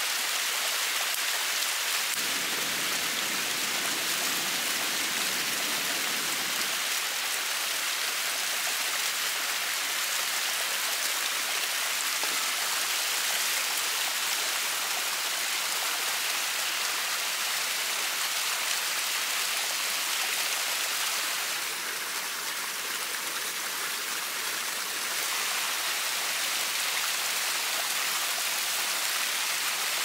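Small waterfall splashing down a rock face: a steady rush of falling water, fuller and deeper for a few seconds near the start.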